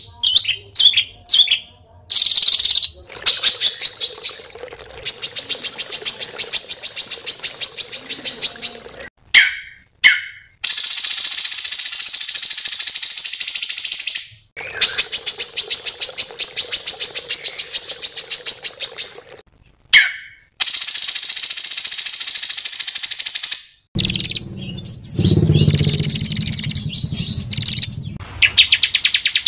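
Small songbirds singing fast, harsh, dense trills, each run lasting several seconds, broken by short chirps and brief gaps. This is the rapid, rough song style kept for training competition songbirds.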